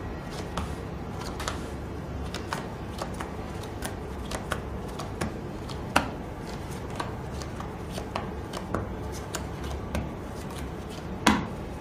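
Playing cards being dealt one at a time onto a felt poker table: a run of light, irregular card snaps and taps, with a sharper one about halfway and another near the end, over a low steady hum.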